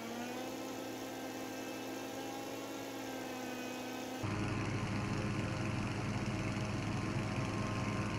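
Faint steady hum made of several held tones. About four seconds in it switches to a lower, buzzier hum.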